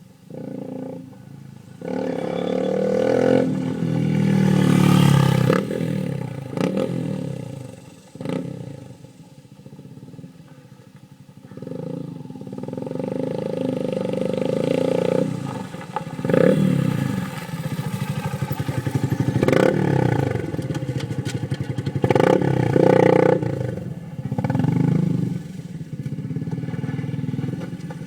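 Honda CRF230M's single-cylinder four-stroke engine through a Two Brothers aftermarket exhaust, revving up and falling back several times, with quieter dips near idle between the loud pulls.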